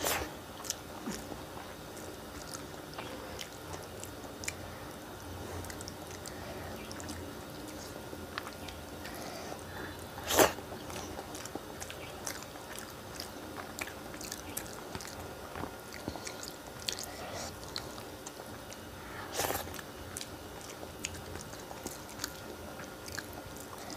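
Close-up chewing and wet mouth sounds of someone eating rice and fish curry by hand, with many small clicks and squishes as fingers mix rice on the plate. Two louder sudden sounds stand out, about ten and nineteen seconds in.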